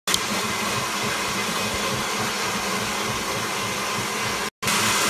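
Electric stand mixer's motor running steadily, a continuous whirr as it beats the tiramisu mixture. It breaks off for a moment near the end.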